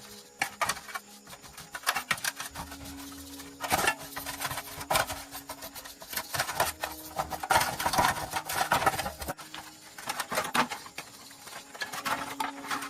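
Irregular clinks and knocks of tools on metal, some spaced out and some in quick runs.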